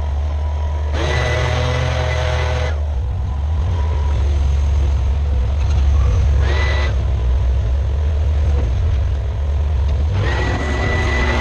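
Bobcat skid steer engine running steadily under load. A high, steady whine comes in three times for a second or two each.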